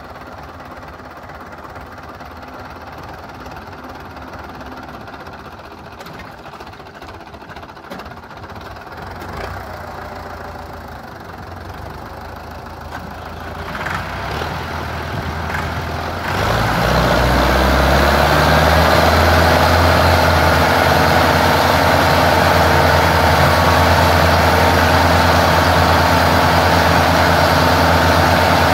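Diesel engines of a Belarus 510 and a Massey Ferguson 375 tractor idling, then revving up about 14 seconds in. From about 16 seconds on they run loud and steady at full throttle, under heavy load as the two chained tractors pull against each other.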